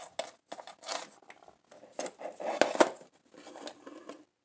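Irregular clicks and scrapes of a lithium-battery charger's cord and plug adapter being handled and plugged into power, with a denser run of clicks about halfway through.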